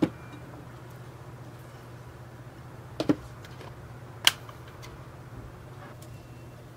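A silicone spatula stirring lemon icing in a glass bowl, knocking the glass with sharp clicks twice in quick succession about 3 seconds in and again a second later, over a steady low hum.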